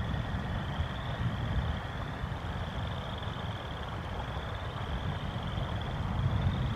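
Steady low rumble and hiss of a thunderstorm's wind and rain on an outdoor microphone, with frogs trilling behind it in high pulsed trills of about a second each, overlapping and repeating.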